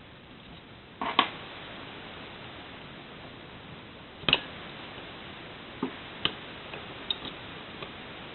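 Sharp clicks and light metallic knocks from tools and small metal parts being handled while the magneto cover is taken off. There is a double knock about a second in and a louder click around four seconds in, then a few smaller ticks, over a low steady hiss.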